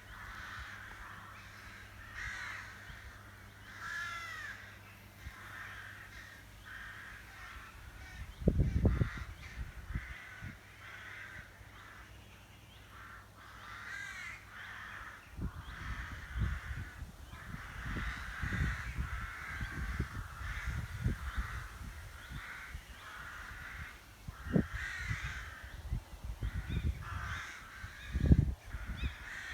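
A rookery of many rooks cawing continuously, their harsh calls overlapping with no break. Irregular low rumbles come under the calls, loudest about eight seconds in and near the end.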